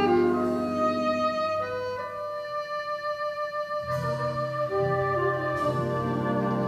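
Jazz big band of saxophones, brass, piano, bass and drums playing long held chords. The texture thins to a high held note in the middle, then a full low chord comes in about four seconds in.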